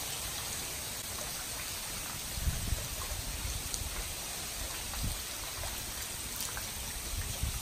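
Small ice pellets and rain falling steadily, pattering on a concrete pool deck and lounge chairs, with scattered light ticks of pellets hitting. A few low thumps sound on the microphone.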